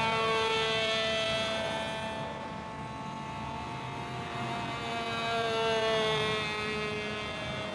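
An engine running with a steady drone, its pitch sagging slightly and rising again. It grows louder about three quarters of the way through.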